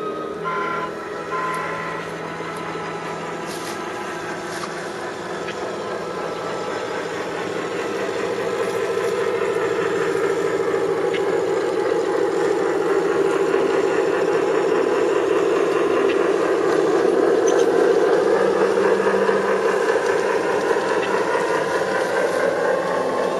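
Dallee sound units in G-gauge model diesel locomotives playing a diesel engine sound through their speakers as the train runs past. The sound is steady, growing louder from about a quarter of the way in and peaking about three quarters of the way through, then easing slightly.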